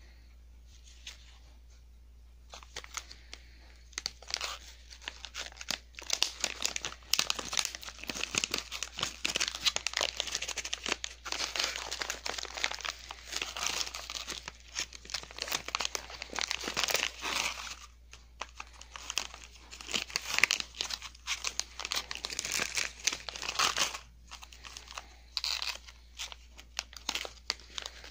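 Thin plastic packaging bag crinkling and rustling as it is handled and opened, in irregular bursts of crackle with a couple of short pauses.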